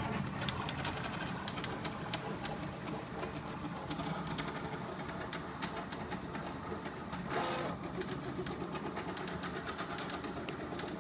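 CTC dual-extruder 3D printer running a print: its stepper motors whir steadily with frequent sharp clicks, and a brief louder burst comes about seven seconds in.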